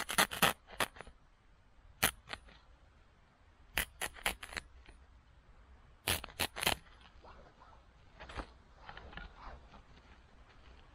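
A small blade cutting a planting hole through woven plastic ground-cover sheet: sharp, crisp clicks in quick clusters every couple of seconds, then fainter scratching near the end.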